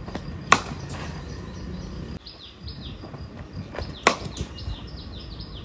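Two sharp knocks of a willow cricket bat striking a leather ball, about three and a half seconds apart, the first the louder. Birds chirp in short falling notes in the second half.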